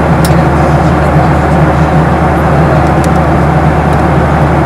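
Steady in-flight cabin noise of a Boeing 737-700 heard from inside the cabin: a constant low engine drone with airflow rush over it, with a few faint ticks.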